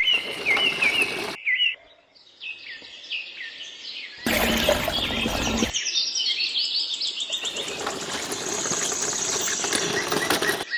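Small birds chirping in series of short, quick repeated notes, a few per second. The sound is cut off abruptly and resumes several times.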